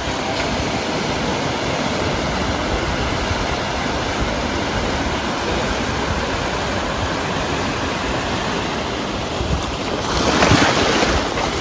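Small sea waves breaking and washing up over sand and rocks, a steady surf wash that swells louder about ten seconds in as a wave surges in among the rocks.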